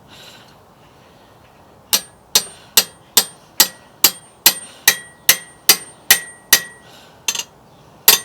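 Steel hammer blows on a bearing puller clamped to a seized bicycle crank arm, shock-loading it to break the crank free of its spindle. After about two seconds of quiet, the strikes come in a steady run, a little over two a second, each hit ringing metallically.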